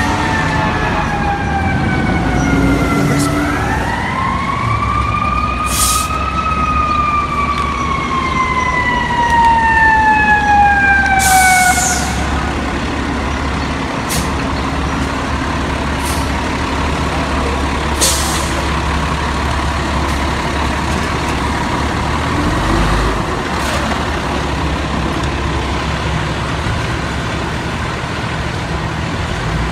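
FDNY fire engine's siren winding down, rising again, then slowly falling and dying away, over the low rumble of the truck's diesel engine. A few short hisses come through, and after the siren stops the engine keeps running steadily.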